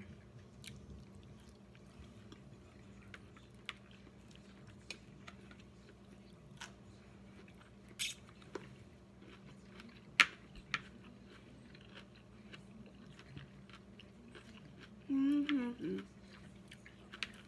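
A person biting and chewing a cooked asparagus spear close to the microphone: wet chewing with scattered sharp crunches, the loudest about ten seconds in. A brief hummed "mm" comes near the end.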